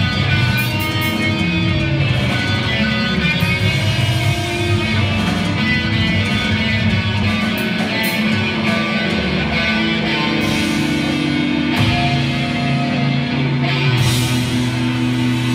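Punk rock band playing live: loud electric guitars over bass and drums.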